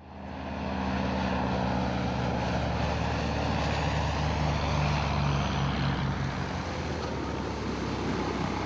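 Electric-motor-driven pusher propeller of a modified Rutan Long-EZ aircraft running: a steady propeller drone with several low hum tones, fading in over the first second.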